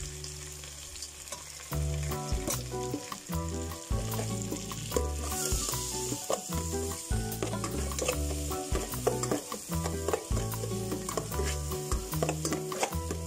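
Butter and a little cooking oil sizzling in an aluminium pot, stirred with a metal spatula that clicks and scrapes against the pot.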